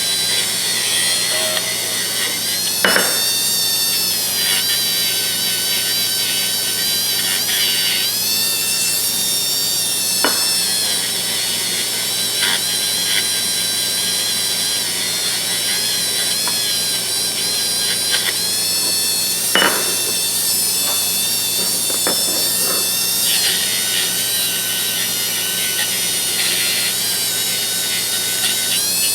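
A small high-speed power tool running steadily with a high whine. Its pitch dips briefly several times as it is loaded against the work, and there are a few sharp clicks.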